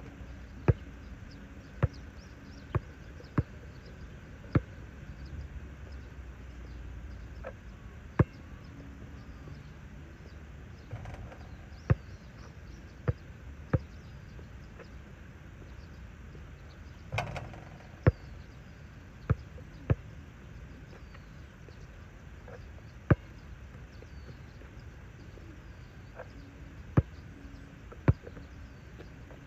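Basketball bouncing on an outdoor asphalt court: sharp single bounces at irregular intervals, sometimes two or three in quick succession, with a longer rattling impact about seventeen seconds in. Faint bird chirps in the background.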